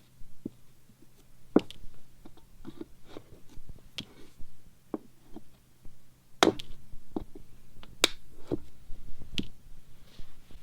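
Irregular sharp clicks and knocks of metal hand tools on staples and a wooden frame during upholstery teardown, the loudest about a second and a half in and twice more later, over a faint steady hum.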